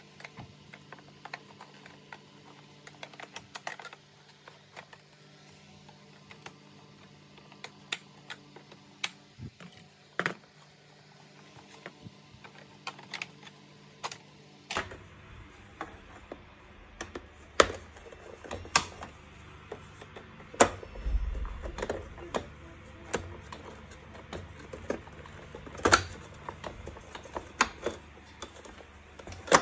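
Irregular plastic clicks and taps as a screwdriver pries and unclips the plastic display cover of a vacuum cleaner's body and the parts are handled, sped up to double speed. The clicks come thicker and louder in the second half.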